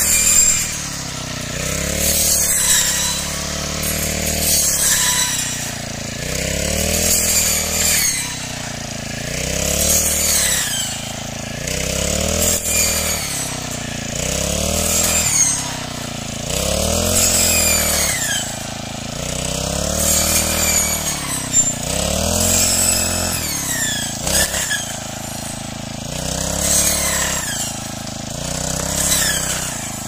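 Petrol brush cutter engine running hard, rising and falling in pitch about every two seconds as the blade is swung through standing wheat stalks.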